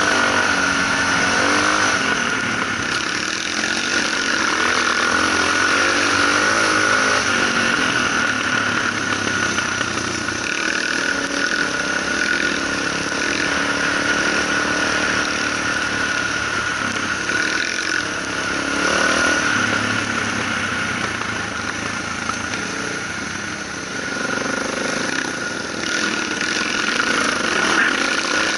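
Suzuki DR650's 644 cc single-cylinder engine pulling the bike along a dirt road, its revs rising and falling with the throttle, under a steady rush of wind noise on a helmet-mounted camera.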